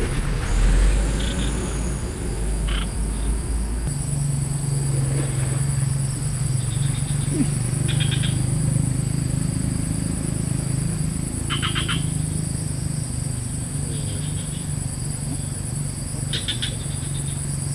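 Swamp frogs calling in short pulsed trains every few seconds over a steady high drone of insects. A low steady drone comes in about four seconds in.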